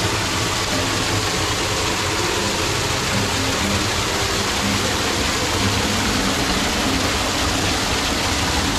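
Small garden waterfall: a curtain of water pouring over a rock ledge and splashing into a pond below, a steady, even rush.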